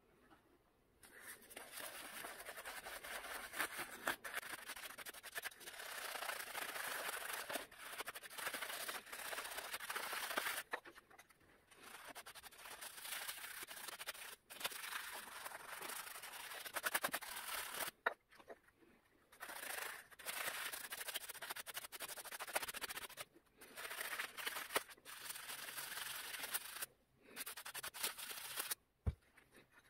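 A stiff brush scrubbing a foam-covered EGR valve from an Audi A4 1.9 TDI, clogged with soot, in spells of several seconds broken by short pauses.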